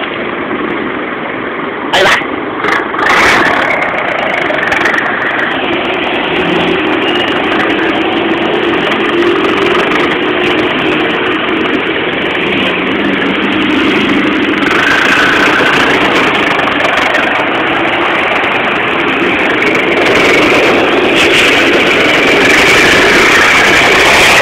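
Loud exhaust of a Mercedes-Benz passenger bus's diesel engine, heard right at its original tailpipe, running steadily and growing gradually louder. A couple of sharp knocks come about two and three seconds in.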